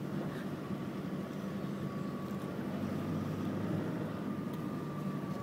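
Four-wheel drive's engine and tyres on a soft sand track, heard from inside the cab: a steady low drone with a faint high whine over it.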